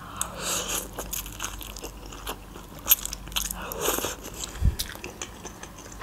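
Close-miked mouth sounds of eating a forkful of instant ramen noodles: slurping and chewing with many small wet clicks, swelling just after the start and again about two-thirds of the way in.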